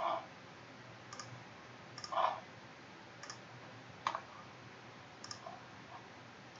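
Computer mouse clicking: seven or eight short, sharp clicks at irregular intervals, about one a second, each placing another wheel into the CAD assembly. Under them is a faint steady room hiss.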